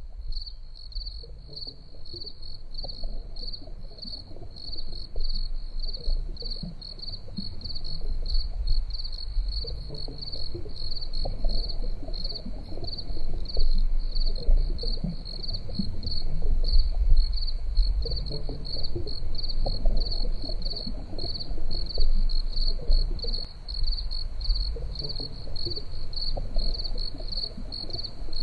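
Crickets chirping in a steady, rapid, high pulsing that never lets up, over a low uneven rumble that swells and fades.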